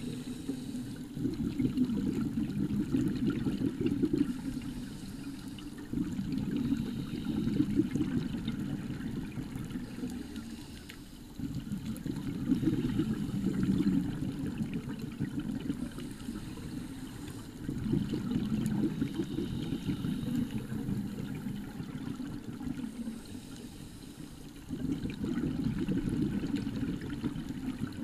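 A scuba diver's exhaled bubbles from a regulator, bubbling and gurgling near the underwater camera. They come in bursts about every six seconds, one with each breath out, each starting suddenly and fading before the next.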